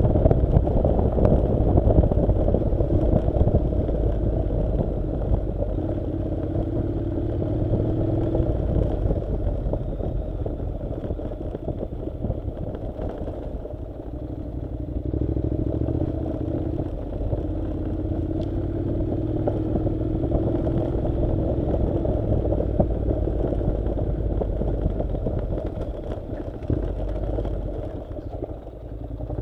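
Honda NC700 motorcycle's 670 cc parallel-twin engine running at low revs while riding a dirt road. The engine note climbs slowly through the middle and eases off briefly near the end.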